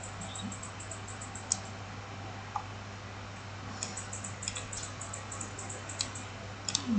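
Sparse light clicks of a computer mouse and keyboard, a few at a time, with a cluster around four seconds in and more near the end, over a steady low electrical hum.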